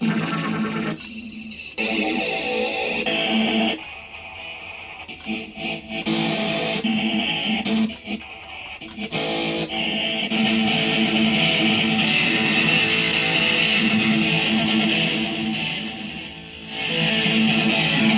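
Electric guitar played through a Hotone Ampero One multi-effects processor, a playing test of the unit after its noise fault was repaired. Strummed chords with short breaks in the first half, then steadier playing from about ten seconds in, easing off briefly near the end.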